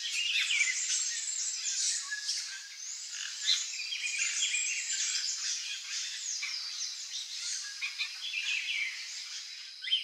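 A chorus of many birds chirping and calling at once, with short quick notes overlapping throughout, over a steady high insect drone.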